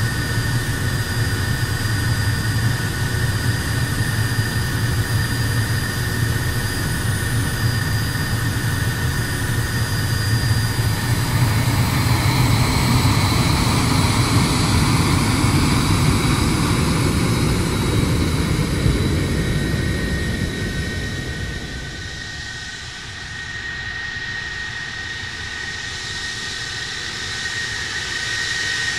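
MiG-31BM interceptor's twin D-30F6 turbofan engines running as the jet taxis: a steady jet rumble with a high turbine whine. It grows loudest around the middle, then drops off about twenty seconds in.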